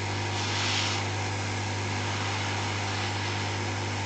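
Hot air rework station blowing: a steady hiss of air over a low electrical hum, with a brief louder hiss about half a second in.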